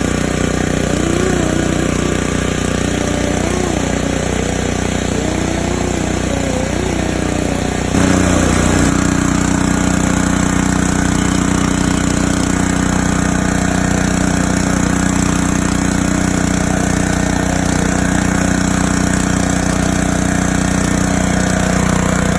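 Pressure washer engine running steadily; about eight seconds in its note shifts and it gets a little louder.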